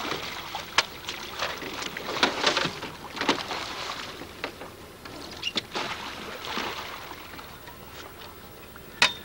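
Water splashing as a sturgeon thrashes in a landing net at the boat's side and is hauled up out of the water. Several sharp knocks and clatters come in among the splashing, the loudest right at the start and again near the end.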